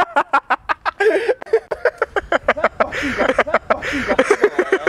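Two men laughing hard in rapid, breathy bursts.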